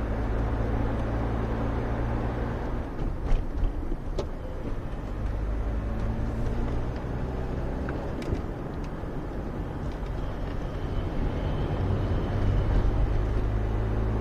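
Citroën BX 14 RE's 1.4-litre four-cylinder petrol engine running on the move, heard from inside the cabin with road noise. There are a few sharp clicks about three to four seconds in, and the engine tone grows louder near the end.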